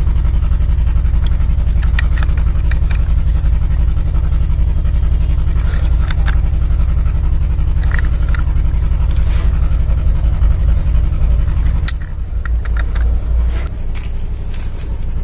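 A steady low hum from an unseen machine underlies the whole clip. Over it come scattered short clicks and scrapes of a pipe wrench working on a brass diverter body as CPVC threaded adapters are tightened into its ports.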